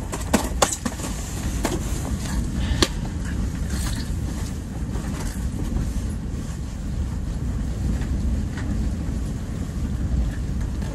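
Steady low wind rumble. In the first three seconds there are a few sharp slaps as a freshly landed lake trout flops on the ice and mat.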